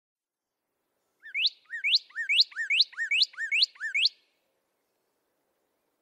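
Northern cardinal singing: a run of seven quick rising whistled notes, a little over two a second, each led in by a short dropping note. It starts about a second in and lasts about three seconds.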